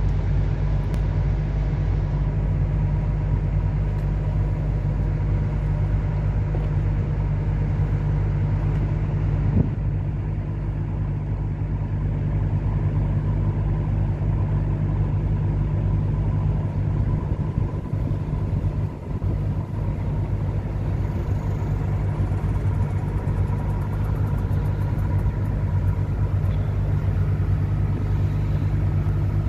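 Wellboat diesel engines running with a steady low rumble and a faint steady hum above it.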